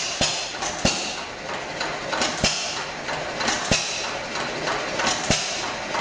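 Hit-and-miss stationary engine running, with a sharp firing bang about every one and a half seconds, four in all, and lighter clicking and clatter between the firings.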